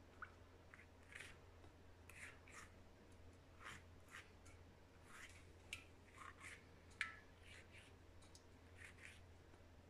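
Faint, scattered dabs and soft scrapes of a pastry brush spreading melted butter over thin strudel dough, with a few light clicks as the brush knocks against a small steel pot.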